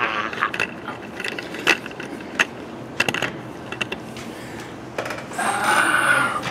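Handling noise from a handheld camera being moved about: scattered clicks and knocks, then a louder scraping rustle for about a second near the end.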